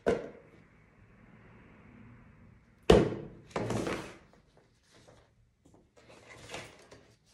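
Printed manuals and leaflets being handled and shuffled on a table, with a sharp thunk about three seconds in as the loudest sound, and softer paper swishes after it.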